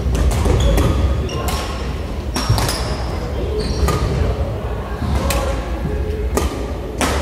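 Badminton rackets striking shuttlecocks, with sharp hits about a second apart, and sneakers squeaking on the wooden court floor. The sound echoes in a large sports hall.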